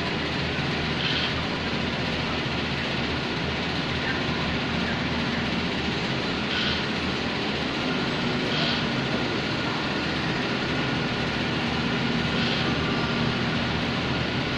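Steady industrial machinery noise, a continuous rumble and hiss with a faint hum running through it, with a few short high squeaks.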